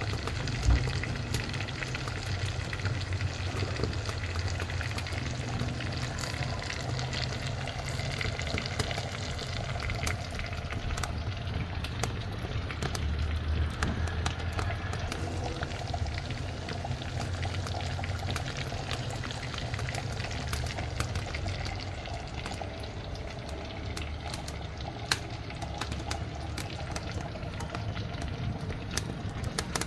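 Pork sausage sizzling in a frying pan on a wood-burning stove: a steady frying hiss with frequent small crackles and pops, over a low steady rumble.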